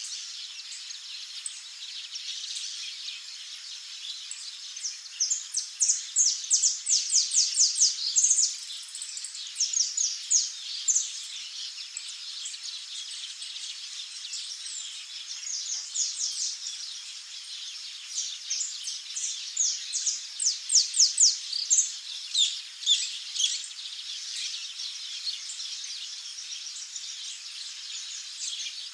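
Small songbirds chirping in fast runs of high notes, several seconds at a time and about four times over, loudest around a quarter of the way in and again past two-thirds, above a steady high hiss.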